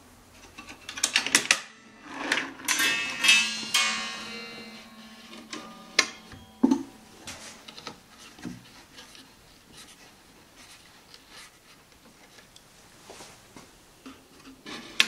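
A plywood panel being handled and fitted onto a wooden cabinet: knocks and rubbing, with a ringing tone from about two to four seconds in. Two sharp clicks follow about six and seven seconds in, then light tapping.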